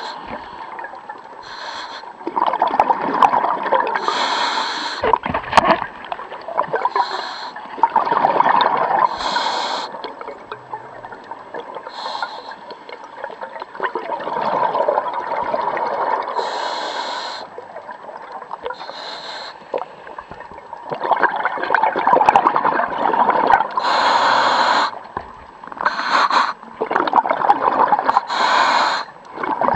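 Scuba diver breathing through a regulator underwater: a hiss on each breath and a rush of exhaled bubbles, repeating every few seconds.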